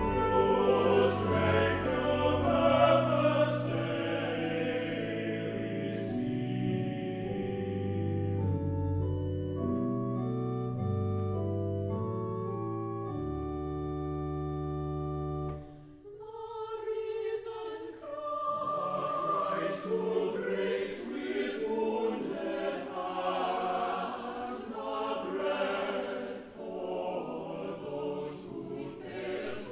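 Church choir singing a sacred anthem with organ accompaniment. About a third of the way in the voices drop out and the organ plays alone, moving in steady sustained chords over a deep pedal bass. About halfway through the choir comes back in over softer organ.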